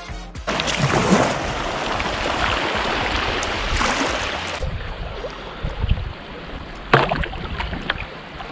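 Kayak paddle strokes splashing and water rushing past an inflatable kayak's hull, with one sharp splash about seven seconds in.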